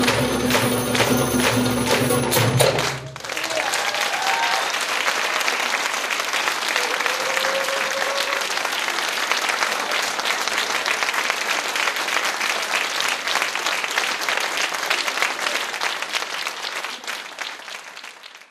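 A group of darbukas (goblet drums) playing a fast rhythm that stops on a final stroke about three seconds in, followed by an audience applauding, which fades out at the end.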